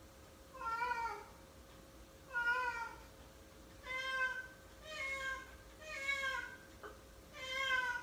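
Domestic cat meowing six times, short calls about a second apart.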